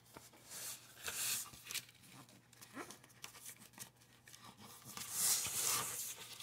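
A sheet of paper rustling and scraping as fingers press and slide it into a small wooden tray, in a few short bursts, the strongest near the end.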